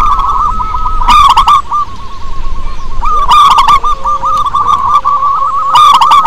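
Zebra dove (perkutut) cooing loudly: a steady run of quick, short coo notes, with three louder song phrases about two and a half seconds apart.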